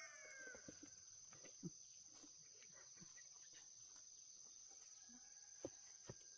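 Faint steady high-pitched insect drone, with the last of a rooster's crow fading out at the start. A few soft knocks come about two seconds in and twice near the end.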